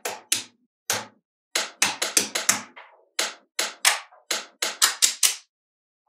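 Small magnetic balls clicking together as slabs of them are pressed and snapped onto the build: a quick series of about twenty sharp clacks, many in close pairs and threes.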